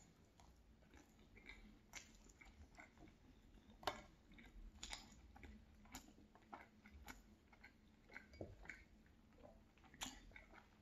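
Close-up chewing of cheeseburger and roasted potatoes: soft, irregular wet mouth clicks and smacks, with two sharper clicks, one about four seconds in and one near the end.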